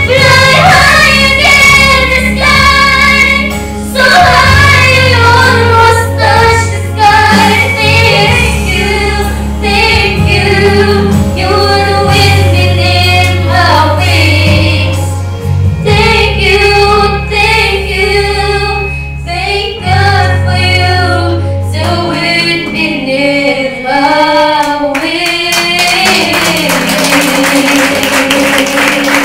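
Two girls singing a duet into microphones over a recorded backing track with a steady bass line. The bass drops out about three-quarters of the way through, and the song closes on a long held note.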